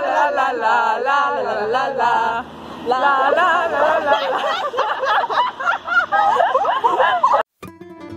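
A group of young women singing together without accompaniment, then breaking into laughter and overlapping voices. Near the end it cuts off suddenly and acoustic guitar music begins.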